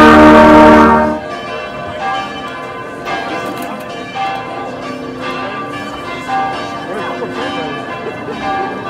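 A brass band's held final chord ends about a second in, and church bells ring on, with strokes roughly once a second and crowd chatter underneath.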